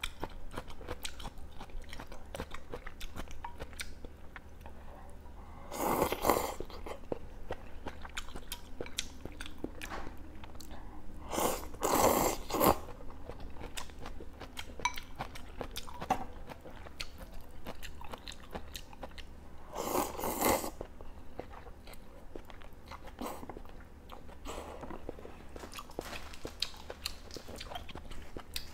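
Close-up mouth sounds of chewing and crunching crisp hotpot greens (water spinach), with many small wet clicks and three louder bursts, each under a second.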